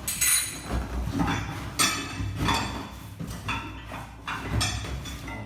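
A cardboard box being opened and a metal tiller implement unpacked from it: a series of rustles, scrapes and light knocks, about one every half second to a second.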